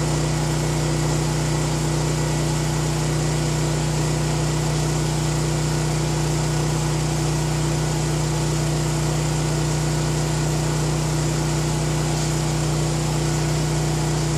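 Champion 7000-watt dual-fuel portable generator running steadily under load, powering a well pump that draws about 16 amps.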